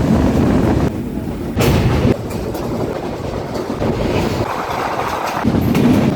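Diesel-hauled passenger train running on the rails: a loud, steady noise that swells and eases several times.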